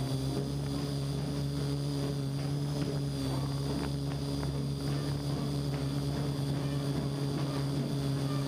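Parrot AR.Drone 2.0 quadcopter in flight, its four rotors giving a steady, unwavering buzzing hum, heard close-up through a GoPro mounted on the drone itself.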